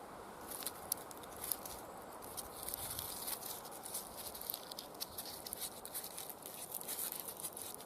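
Leatherman Free P4 scissors cutting dry birch bark: a dense, irregular crisp crackling and rustling, building up after the first second or two.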